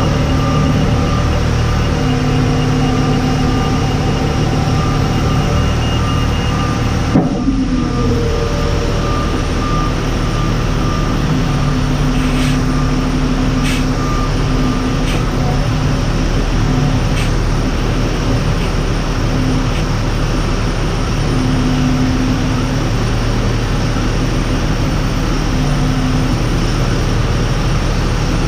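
Towbarless pushback tug running under the nose gear of a Boeing 787-9: a loud, steady mechanical drone with hums that switch in and out. A single clunk comes about seven seconds in, and a few faint clicks follow later.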